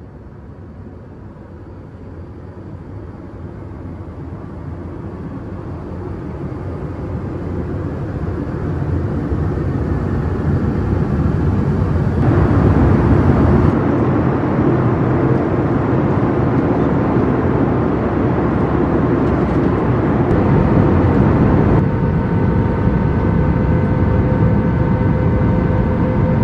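Airbus A320 cabin noise in flight: the steady rush of air and engine noise, fading up over the first dozen seconds and then holding level. A faint steady hum at a few fixed pitches joins near the end.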